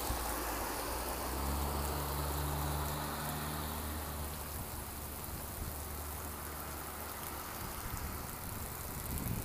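Hail and rain falling as a steady hiss, with a vehicle engine running low underneath that fades out after about four seconds.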